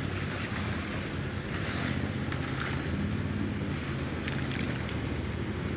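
Ford Bronco driving on an off-road trail: a steady low engine hum under a haze of wind noise, with a few light ticks and knocks.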